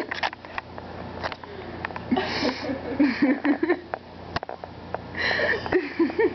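A person sniffing and sniffling, in two breathy bouts, one about two seconds in and another about five seconds in, with scattered sharp clicks and taps between them.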